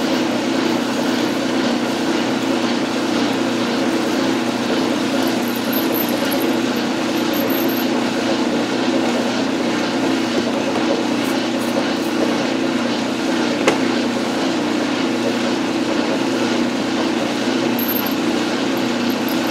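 Metal lathe running steadily as a 7/32-inch drill bit cuts a tap-drill hole for a 1/4-20 thread in stainless steel. The drone is even, with no breaks.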